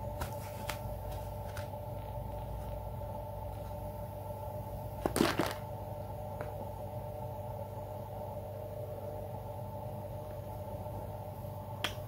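A knife cutting a fresh apple and the pieces being handled over plastic toys: a few soft clicks, then one louder knock about five seconds in, over a steady low hum.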